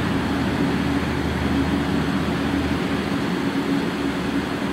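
Steady mechanical hum with a constant drone; a deep low part of it drops away a little before three seconds in.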